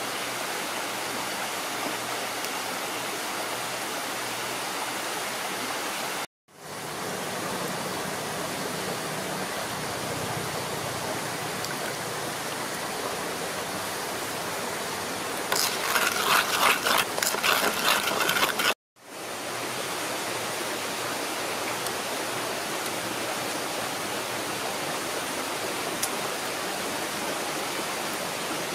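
Steady rushing of a stream, breaking off briefly twice. Partway through, a few seconds of rapid, loud clicking and scraping rise above it.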